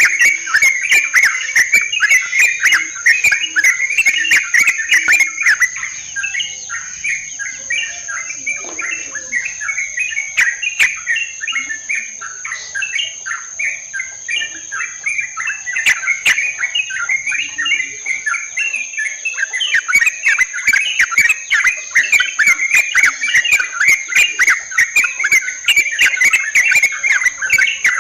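A flock of yellow-vented bulbuls chattering, a dense run of quick bubbly chirps that thins out and grows quieter for a stretch in the middle, then picks up again. A steady high insect buzz runs underneath.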